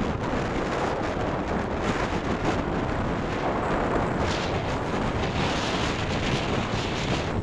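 Wind buffeting the microphone of a moving phone, a steady rushing noise at an even level, with vehicle and road noise underneath.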